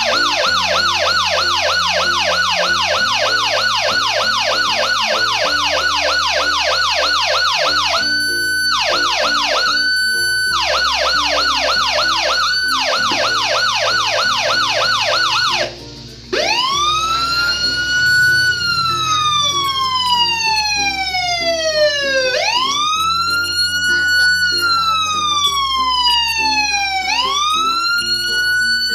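Homemade four-transistor electronic police siren played through an LM386 amplifier, switching between patterns: a fast yelp sweeping up and down several times a second, broken twice by a short steady tone, then cutting out briefly about halfway and changing to a slow wail that rises, falls and rises again.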